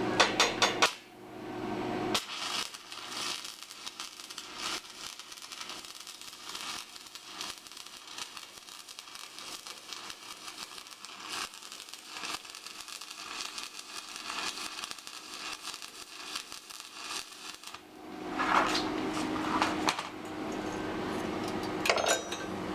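Stick-welding arc from an AVT-200 inverter welder burning a 3 mm electrode, crackling and hissing steadily for about sixteen seconds. There are louder clicks and knocks just before it and again near the end.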